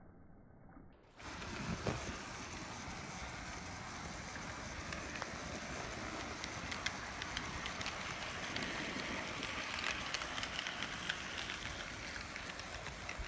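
Brass HO scale model of a Southern Pacific MC-4 cab-forward steam locomotive running along the track: a steady mechanical whirr of the motor and gear drive with scattered clicks of the wheels on the rails, starting suddenly about a second in.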